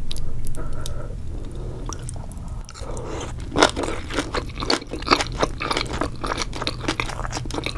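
Close-miked mukbang eating sounds: wet, crunchy chewing of a mouthful of spicy seafood, with rapid smacking clicks that thicken from about three seconds in. A steady low hum runs underneath.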